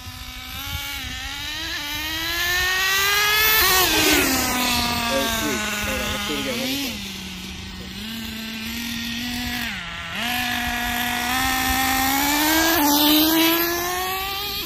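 Nitro glow engine of a Kyosho USA-1 monster truck running under throttle as the truck drives. Its pitch climbs, drops sharply about four seconds in, holds lower, dips near the ten-second mark, then climbs again toward the end.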